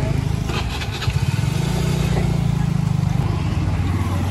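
A small motorcycle engine idling close by, running steadily with an even low pulse.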